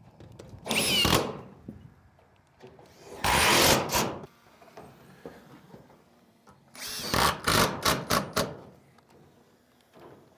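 Roofing screw gun driving screws through steel roof panels in three spells: two short runs of a second or less, then several quick pulses one after another near the end.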